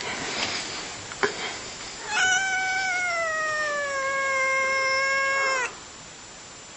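A young grey tabby cat gives one long drawn-out meow of about three and a half seconds, its pitch sliding down a little and then holding steady before it stops abruptly. A brief click comes about a second in.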